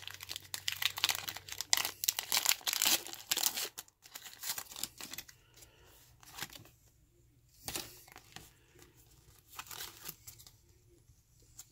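Foil wrapper of a Pokémon trading-card booster pack being torn open and crinkled in the hands, with dense crackling for the first few seconds. After that come quieter, scattered rustles and slides as the stack of cards is pulled out and handled.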